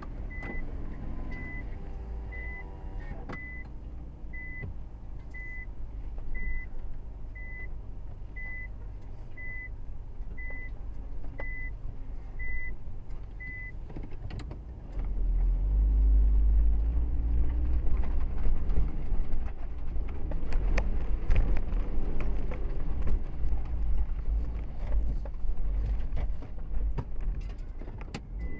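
Nissan Expert station wagon heard from inside the cabin driving a rutted dirt track: engine running under a low rumble, with the body knocking and rattling over the ruts. About halfway through it gets much louder and heavier. Through the first half a short high beep repeats about once a second, then stops.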